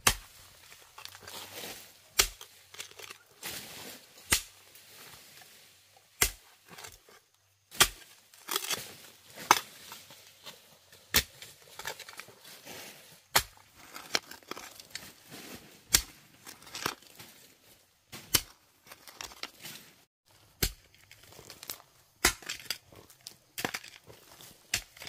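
Hand hoe chopping into forest soil about every two seconds, each sharp strike followed by the gritty scrape and crumble of loose earth being dragged out of the hole while digging out wild yam tubers.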